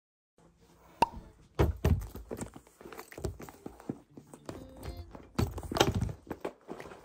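Black leather shoulder bag handled on a tabletop: a sharp click about a second in, then a series of thuds and knocks as the bag is set down and moved about, with rustling between.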